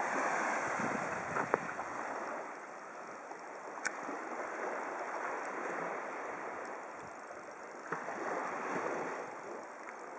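Small Baltic Sea waves washing against broken concrete blocks at the shoreline, swelling and fading twice, with a few faint clicks.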